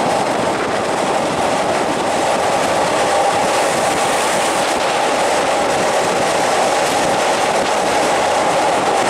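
Passenger train carriage running along the track, heard from its open window: steady wheel-on-rail noise.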